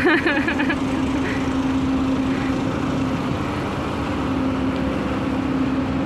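Car ferry's engines running, a steady, unchanging drone with a constant low hum.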